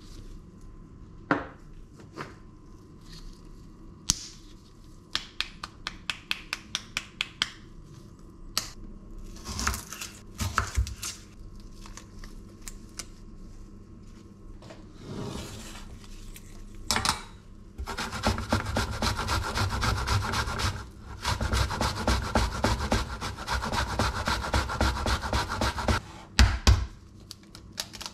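A kitchen knife chopping an onion on a wooden cutting board in fast, steady strokes for about eight seconds in the second half. Earlier there is a short string of quick clicks and some rustling.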